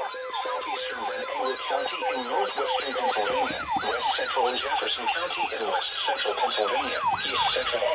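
Electronic siren yelping, its pitch sweeping up and down about three times a second, over steady tones, one of which stops about half a second in.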